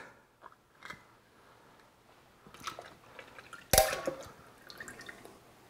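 Evaporated milk poured from a can into a blender jar, with faint wet dribbling and small clicks, and one sharp metallic clink with a short ring about two-thirds of the way through.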